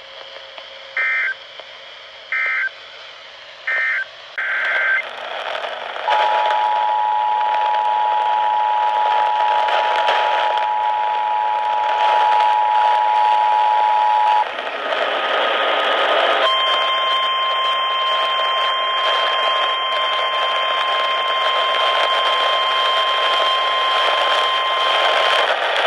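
Emergency Alert System broadcast sequence: short SAME data bursts about a second apart, then the two-tone EAS attention signal held steady for about eight seconds, then a single steady weather-radio warning alarm tone for about nine seconds, all over radio hiss.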